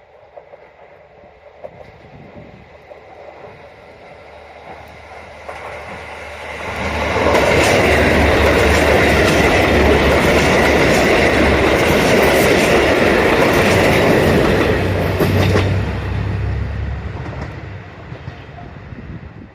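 JR Kyushu KiHa 185 series diesel train passing: it approaches with a rising engine drone, runs by loud for about eight seconds with its wheels clicking over the rail joints, then fades away.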